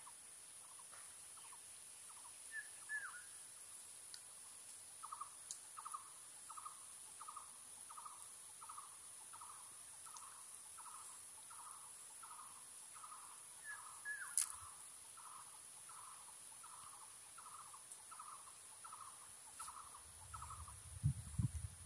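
A bird calling a short note over and over, about twice a second, faint against a steady high-pitched whine, with a couple of brief chirps and a single sharp click. Low rumbles come in near the end.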